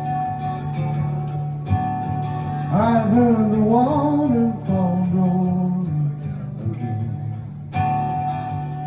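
Acoustic guitar playing a song's introduction, its chords ringing out and freshly strummed twice. A wavering, sliding melody line rises over the chords about three seconds in.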